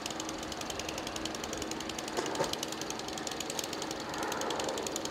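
An engine running steadily with a fast, even knocking beat. There is a short clatter about two seconds in.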